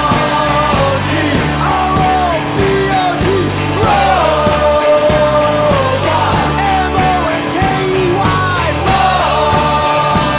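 Rock song with a sung vocal line gliding up and down over a steady band backing.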